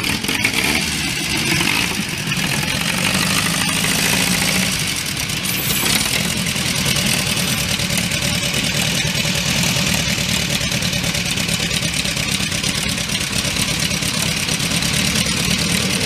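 1929 Henderson KL's air-cooled 1301 cc inline four-cylinder engine idling steadily.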